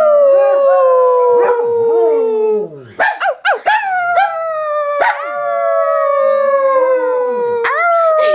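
A small Yorkie-poodle mix and a Basset hound howling: long drawn-out howls that slide slowly down in pitch, starting afresh about every two to three seconds, with shorter wavering yelps and bays underneath.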